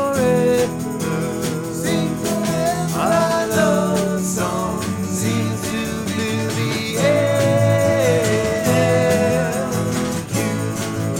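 Live acoustic band music: male vocals with long held notes over a strummed acoustic guitar and a drum kit played with sticks.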